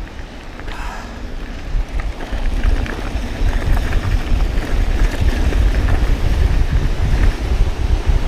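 Mountain bike riding at speed on a dirt trail: wind buffeting the helmet camera microphone over tyre rumble, growing louder about two seconds in as the bike picks up speed.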